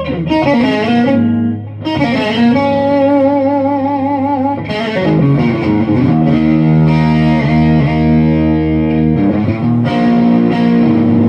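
Electric guitar played solo through an amplifier: sustained single notes and chords held with wide vibrato and string bends, with a short break just before the two-second mark.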